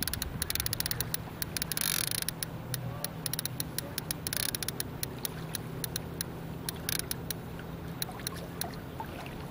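A kayak on a flowing river: irregular sharp clicks and taps, several a second, over a low steady hum and faint water noise.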